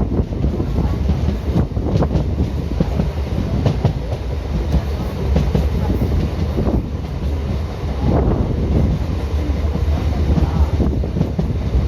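Indian Railways ICF train running along the track: a steady low rumble, with wheels knocking irregularly over rail joints.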